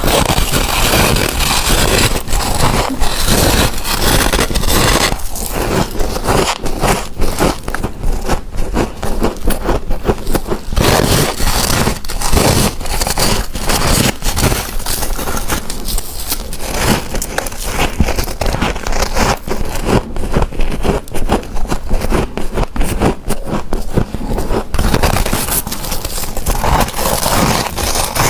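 Close-miked biting and chewing of a big chunk of refrozen freezer frost: dense, irregular crunching and crackling that never lets up.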